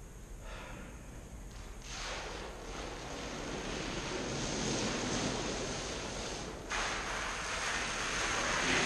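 A strip of glue-down commercial carpet being ripped up off the floor, giving a continuous tearing noise. It starts about two seconds in, grows louder, and gets suddenly louder again near the end.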